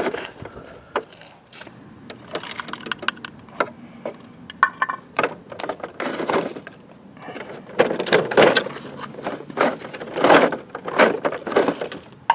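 Plastic packer mechanism of a toy rear-loader garbage truck being turned by hand, the compactor blade clicking and rattling in irregular bursts as it cycles through the hopper.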